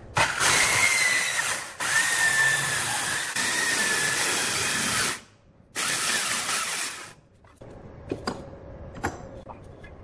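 Handheld corded circular saw cutting along a wood slab, a steady high blade whine over the cutting noise. The sound breaks off abruptly a few times, stops about seven seconds in, and is followed by a couple of light knocks.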